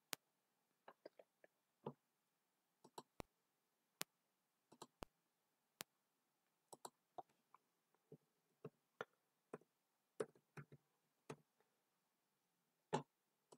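Faint computer mouse clicks and keyboard keystrokes, short and irregularly spaced, with near silence between them.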